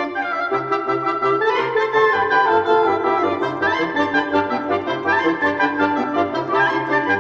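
Background music: wind instruments play a stepping melody over a steady, pulsing bass line.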